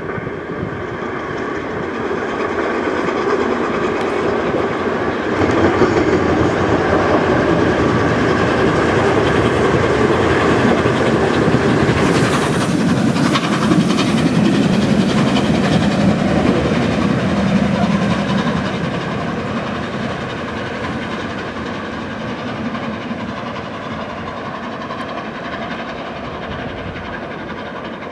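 LNER Peppercorn A1 Pacific steam locomotive running past on the rails: the sound builds, stays loud for about twelve seconds in the middle, then fades away.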